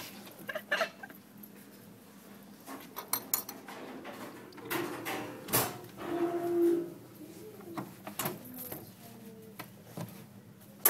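Scattered clicks and light clatter of small hard objects being handled and moved about inside a cat cage, with a brief low-pitched sound about six seconds in.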